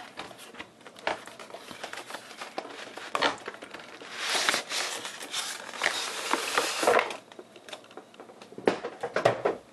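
Cardboard packaging being handled and opened: scattered light taps and clicks, then a few seconds of steady scraping hiss as a foam tray slides out against the cardboard box, and a couple of sharper knocks near the end.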